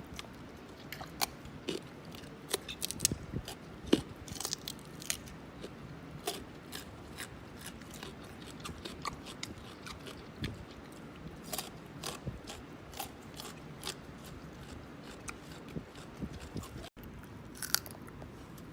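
Chimpanzees biting and chewing raw carrots: a run of sharp, irregular crunches, some loud, over steady chewing.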